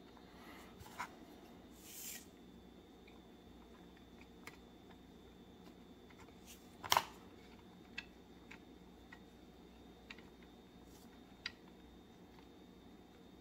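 Scattered small clicks and taps of plastic model track links and the kit's hull being handled, with metal tweezers setting links into place; one louder click about seven seconds in and a short scratchy rustle about two seconds in, over a faint steady hum.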